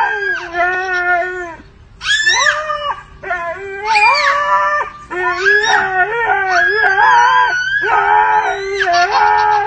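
A husky howling and 'talking' in a series of long, wavering calls with short breaks, traded back and forth with a toddler's high-pitched shrieks and squeals.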